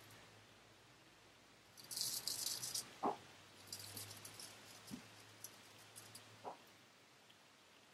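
A hollow-ground T.R. Cadman & Sons straight razor scraping through lathered stubble in short, rasping strokes, the strongest stroke about two seconds in and lighter ones following. Two short sharp clicks come near the middle and towards the end.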